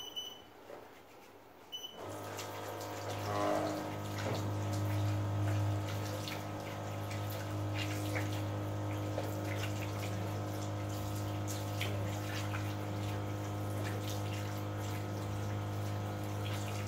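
Small electric water pump of a hands-free dispenser switching on about two seconds in with a steady hum, and water running out and splashing. Both stop suddenly near the end.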